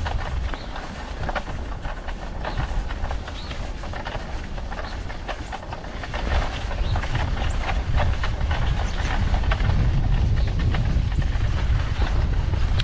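Ride noise from a bicycle on a snowy winter path: wind rumbling on the microphone, with a steady run of rattles and clicks as the bike rolls over rough ground. It gets louder about six seconds in.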